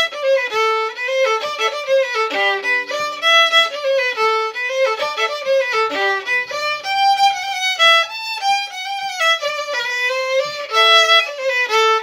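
Solo fiddle playing a mazurka: a quick melody of short bowed notes, now and then with a lower note held under the tune as a double stop.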